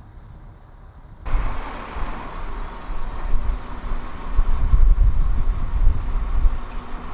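From about a second in, a sailboat motoring under its inboard engine: a low drone with a faint steady hum, under loud, gusty wind buffeting on the microphone.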